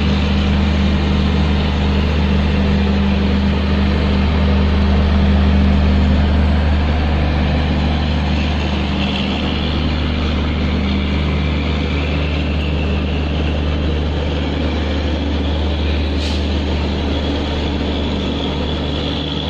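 WDM-3A diesel locomotive engine running steadily with a deep, even drone. A short sharp tick comes about three-quarters of the way through.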